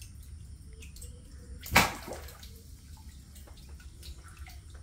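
A single sharp splash in the water about two seconds in, over steady trickling and dripping water.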